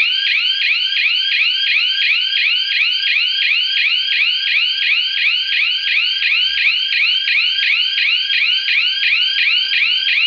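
Small relay-switched electronic siren sounding a loud, fast repeating whoop of rising sweeps, about four a second: the flood alert, triggered because the water has reached the full level.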